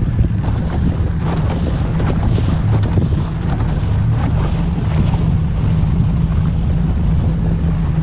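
A small boat's outboard motor running steadily at cruising speed, a constant low drone, with wind buffeting the microphone and water rushing past the hull.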